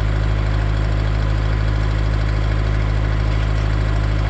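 Kubota tractor's diesel engine running at a steady speed while it works a Bradco 625 backhoe digging a hole.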